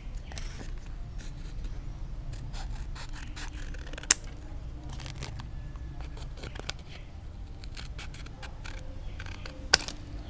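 Scissors cutting through a paperboard cigarette pack: a run of short snips and blade clicks, with a louder snap about four seconds in and another near the end.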